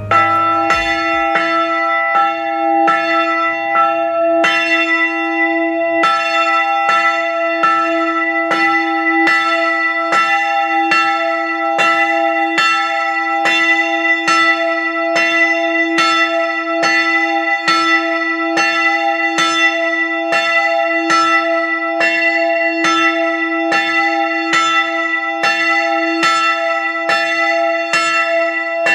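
A 160 kg bronze church bell tuned to E (e2), cast by the Dytrych foundry and swung by an electric linear-motor drive, ringing in full swing: its clapper strikes about every three-quarters of a second in an even rhythm, each stroke over a steady, sustained low hum.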